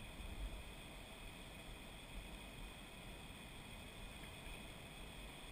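Faint steady hiss with an uneven low rumble, the background noise of a helmet camera's microphone, with wind on it.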